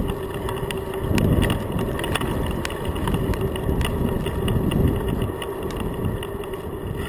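Wind buffeting the microphone of a bicycle-mounted camera in low, surging gusts, over the rumble and rattling clicks of a loaded touring bicycle riding on rough, patched asphalt.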